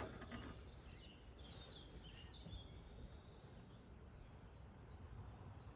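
Quiet background with faint birdsong: small groups of short, high chirps near the start, around two seconds in and near the end.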